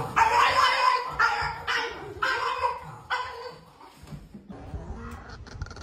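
A small dog barking, about five barks in quick succession, then going quieter.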